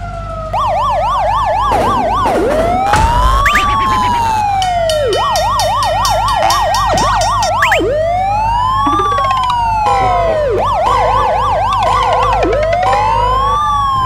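Police car siren starting about half a second in, alternating a slow rising-and-falling wail with a fast yelp, several siren tones overlapping.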